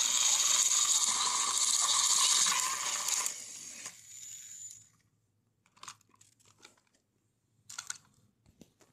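Battery-powered plastic toy train engine's motor and gears whirring loudly as it strains against its load, fading out a little over three seconds in as the engine tips off the track. A few short, soft clatters follow as the toy cars land on the carpet.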